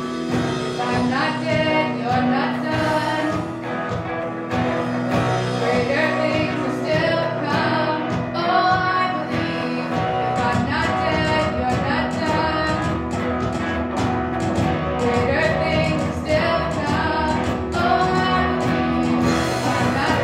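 Live worship band: a woman singing the lead over electric guitar, keyboard and drums. The bass end fills out about halfway through.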